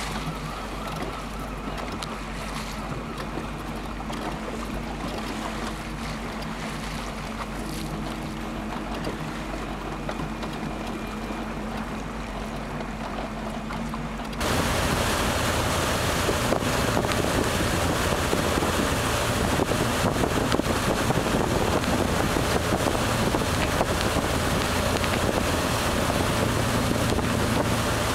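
Wind on the microphone and water noise heard from a small boat on open harbour water, with a low steady hum underneath. About halfway through, the sound turns abruptly louder and rougher.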